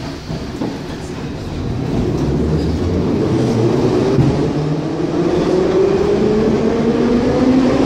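Soviet Ezh3 metro train pulling away and accelerating: a steady rumble that grows louder, with the traction motors' whine rising in pitch from about three seconds in.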